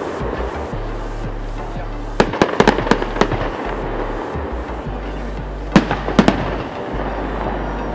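Fireworks display going off: clusters of sharp bangs about two seconds in and again near six seconds, over a continuous crackling rumble.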